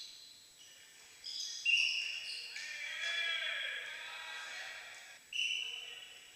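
Indoor volleyball rally: a few sharp hits and squeaks on the court, and players shouting in the middle of it, echoing around the hall.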